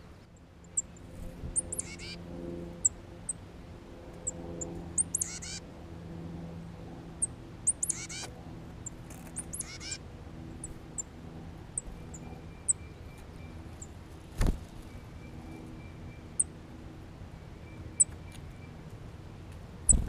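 Small songbirds calling: many short, high chips scattered throughout, with several quick, rapidly repeated call phrases in the first half. A single sharp thump about two-thirds of the way through.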